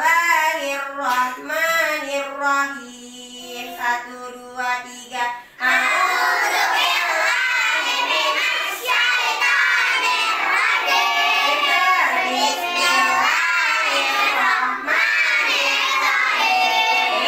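A single voice singing a melodic line, then from about six seconds in a class of young children singing together loudly.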